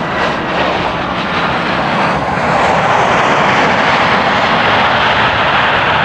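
Jet engine roar of a Boeing 767-300ER at takeoff power, loud and steady, swelling about two seconds in and then holding.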